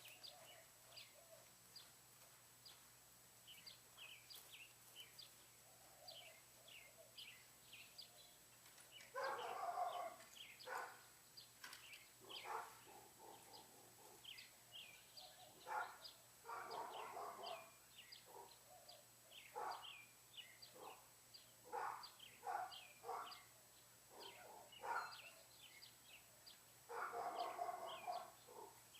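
Faint outdoor birdsong: many short chirps. Three louder animal calls of about a second and a half each come near 9, 16 and 27 seconds in.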